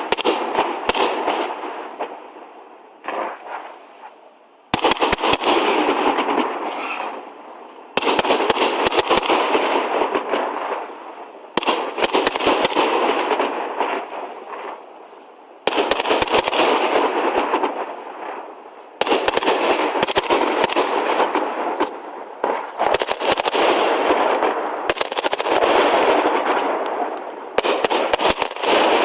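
Fireworks display: a volley of bursts goes off suddenly every three to four seconds, each followed by a dense crackle that fades away before the next.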